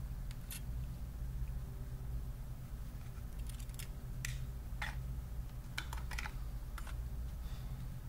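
Irregular small clicks and taps of hands, a screwdriver and tiny screws against an opened laptop's chassis and internal parts, bunched in the second half, over a steady low hum.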